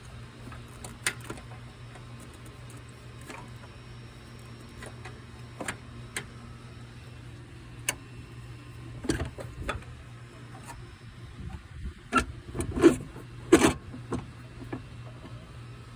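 Scattered clicks and knocks of car parts and hand tools being handled during brake booster work, with a louder group of clunks about nine seconds in and several more near the end, over a steady low hum.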